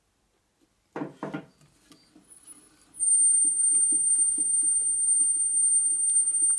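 Two hammer blows about a second in on a Harley-Davidson flywheel assembly held in a truing stand, struck to bring its runout true. From about three seconds in, as the flywheels are turned by hand, a steady high-pitched squeal sounds over a soft rhythmic ticking.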